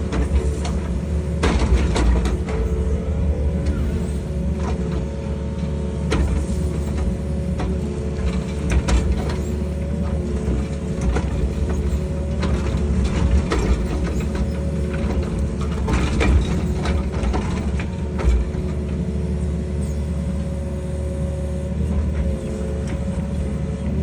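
Excavator's diesel engine and hydraulics running steadily with a constant whine while scraping soil, with scattered sharp knocks.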